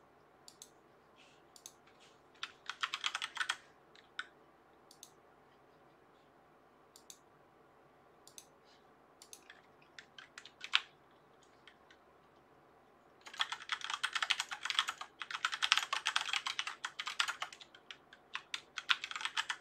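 Computer keyboard typing. Scattered single clicks and a short flurry of keystrokes come in the first half, then a few sparse clicks, then a steady run of typing for the last six seconds or so.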